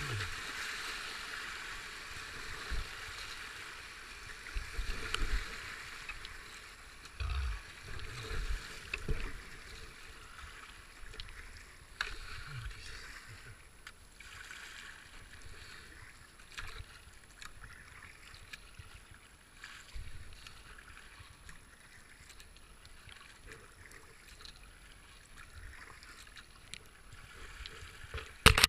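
Fast river water rushing and hissing around a kayak hull as it runs a gravel rapid, fading as the river flattens into slow water. Scattered low thumps come in the first third, and a few sharp knocks sound near the end.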